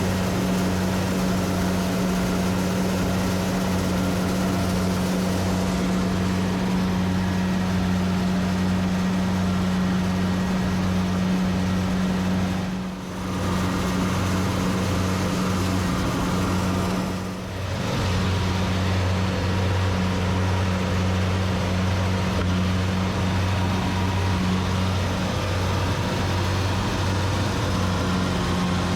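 Kubota rice combine harvester's diesel engine running steadily with a deep hum, dipping briefly twice.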